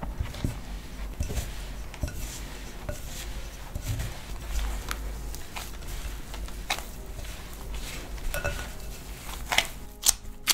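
A spatula scraping and knocking against a glass mixing bowl while stirring dry, crumbly cocoa cookie dough, then a gloved hand squeezing and pressing the dough in the bowl. Irregular scrapes and clicks, with a run of sharper clicks near the end.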